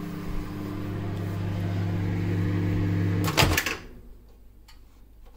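Microwave oven running with a steady low electrical hum. About three and a half seconds in, a couple of sharp clunks, and the hum cuts out.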